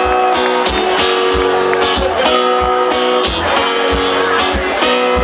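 Live band playing a song's instrumental intro: strummed guitar over bass and a steady drum beat.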